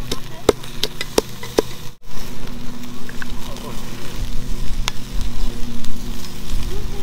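Wooden pestle pounding chillies and garlic in a wooden mortar for papaya salad: four sharp strikes in the first two seconds. Then a steady hum and hiss with a single click.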